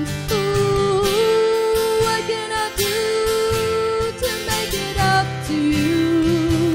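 A woman singing a slow song, holding long steady notes, with a man's acoustic guitar accompaniment; the melody steps down to a lower held note near the end.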